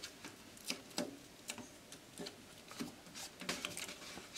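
Faint, irregular little clicks and crinkles of adhesive copper tape being handled and pressed down by hand onto a Teflon-coated metal plate.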